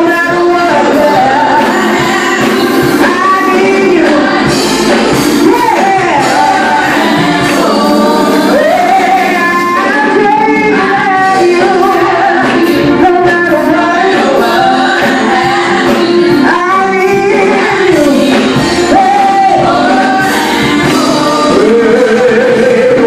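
A gospel praise-and-worship group singing into microphones, mostly women's voices with a man's voice in the group, continuous and loud.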